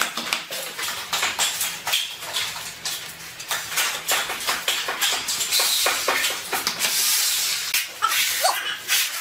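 Steel trowels scraping and spreading tile mortar across a floor, with short clicks and taps of tools and tiles; a longer, denser stretch of scraping comes about midway.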